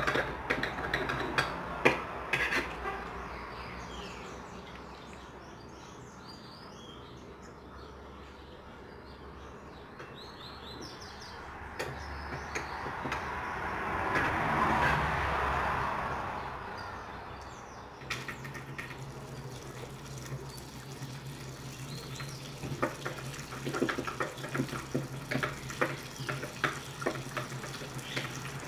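Hand-washing at a sink: tap water running and splashing, with knocks and clatter at the start and again near the end, and a rush of water in the middle. Birds chirp faintly in the background, and a low steady hum comes in about two-thirds of the way through.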